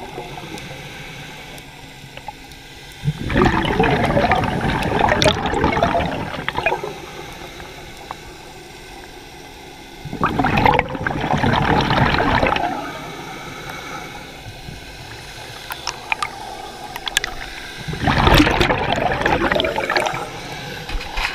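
Scuba diver breathing through a regulator underwater: three exhalations, each a bubbling rush of exhaust bubbles about three seconds long, coming roughly every seven to eight seconds, with quieter spells between them.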